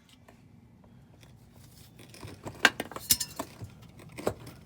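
Scattered metallic clinks and knocks, starting about two seconds in, as a truck's rear strut is worked loose from a mount made sticky by corrosion.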